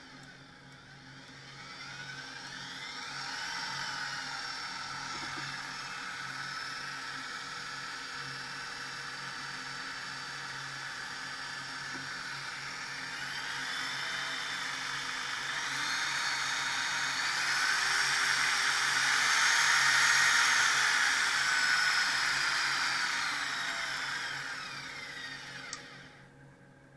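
Parkside PSTK 800 B2 800 W pendulum jigsaw running, its motor whine rising and falling in pitch as the speed changes. It is loudest in the second half and stops abruptly near the end.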